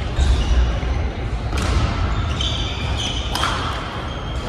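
Badminton rally: two sharp racket hits on the shuttlecock about two seconds apart, with shoes squeaking on the wooden court floor over the low hum of a large sports hall.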